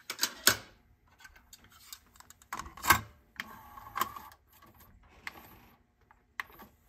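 Sony TC-K909ES cassette deck being loaded and started: a run of sharp plastic clicks and clacks as the cassette goes in and the door snaps shut, loudest about three seconds in, then the transport keys clicking as they are pressed.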